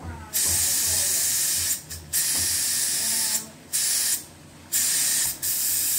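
Stovetop pressure cooker's weighted valve venting steam in loud hissing spurts, five in all, most about a second long with short gaps between. This is the sign that the cooker has come up to pressure.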